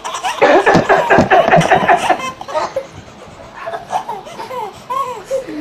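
Laughter: a burst of loud, rapid laughing in the first two seconds, then softer, scattered laughs.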